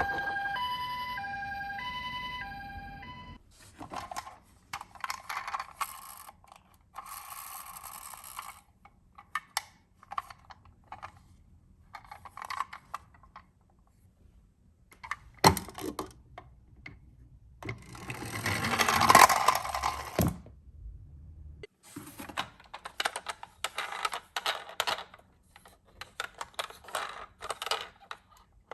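An electronic two-tone ambulance siren, alternating high and low beeps, for the first three seconds. Then the rattling and clatter of a toy die-cast ambulance rolling on a slope, with a sharp click midway and a louder rattling run a few seconds later.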